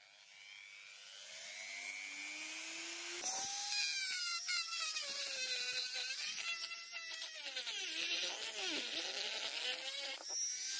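Handheld electric rotary tool whining up to speed, its pitch rising over the first few seconds. From about three seconds in it grinds the inside of the hatchet head's eye with a small abrasive disc: louder, with the motor's pitch wavering up and down as the bit bites the steel.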